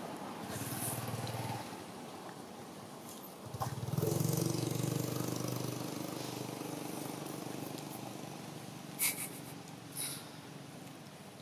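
A motor vehicle's engine running steadily off-screen, swelling from about three and a half seconds in and then slowly fading. Two short sharp clicks near the end.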